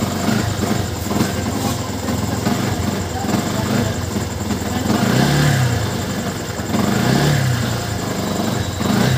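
Yamaha R15's single-cylinder engine running with unsteady revs, blipped up and back down twice, about five and seven seconds in. The unsteadiness is the sign of the misfiring ("missing") problem, which the owner traces to the fuel pump.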